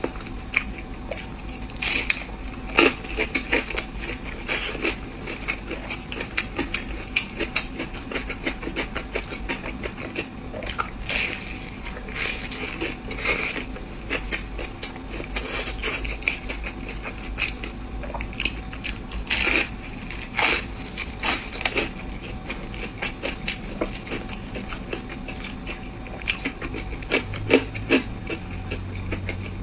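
Close-miked chewing and crunching of crispy fried food: a steady run of irregular crackly bites and crunches, with a few louder crunches scattered through.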